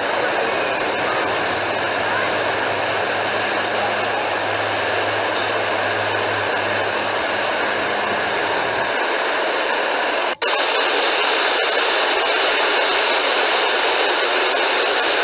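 Steady, loud rushing noise with no distinct events. A low hum underneath stops about nine seconds in, and the sound drops out for an instant about ten seconds in before carrying on slightly louder.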